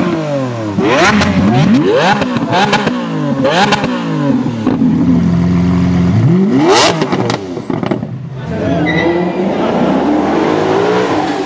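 Lamborghini Aventador V12 engines revved again and again in quick blips, the pitch sweeping up and falling back, with sharp exhaust cracks between revs. About seven seconds in there is one big rising rev. Near the end a Maserati GranTurismo V8 pulls away, its engine note climbing gradually.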